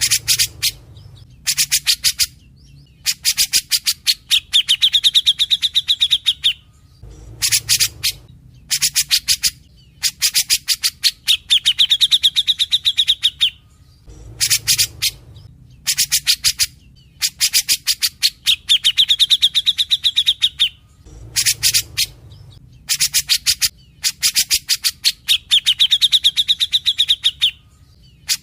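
Cucak jenggot (grey-cheeked bulbul) singing steadily: the same loud phrase over and over, about every seven seconds, each a run of rapid sharp chattering notes that ends in a held, wavering whistle.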